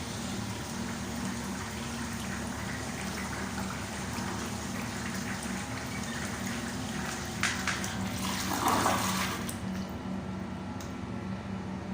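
Water running steadily in an FV Quantum toilet fed by an FV flushometer as the bowl flushes and refills, with a brief louder burst about eight and a half seconds in.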